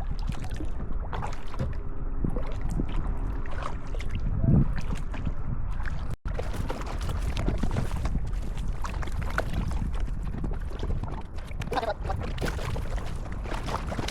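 Kayak paddling: paddle strokes and water splashing and dripping, with wind rumbling on the microphone. A louder knock comes about four and a half seconds in, and the sound briefly cuts out just after six seconds.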